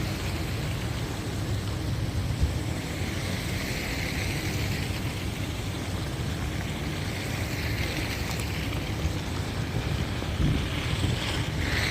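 Street traffic ambience: a steady low rumble with the hiss of vehicles passing on a snowy road, swelling and fading twice.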